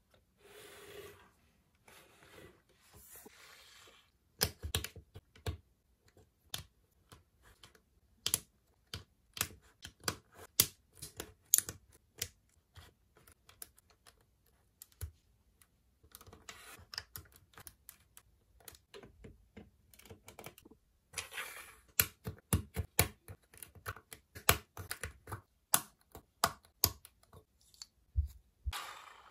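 Plastic Lego bricks clicking and clacking as they are handled and pressed together, in irregular clusters of sharp clicks with quieter stretches between.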